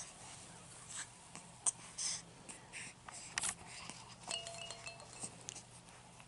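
Soft clicks, clinks and rustles of a baby play gym's hanging plastic toys and rings being handled, with a brief faint steady tone a little past four seconds in.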